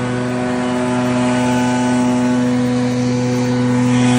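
Gas backpack leaf blower running steadily, its engine holding one even pitch under a rush of air as it blows leaves and sticks across wet grass. It gets slightly louder toward the end.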